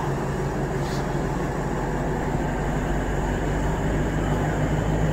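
Steady drone of running machinery, with a low hum that holds one pitch throughout.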